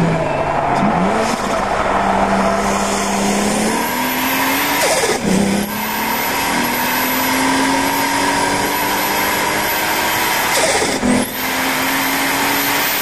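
Nissan R32 Skyline's turbocharged RB25DET Neo straight-six accelerating hard, its pitch climbing steadily through each gear, with two upshifts: about five seconds in and again about eleven seconds in.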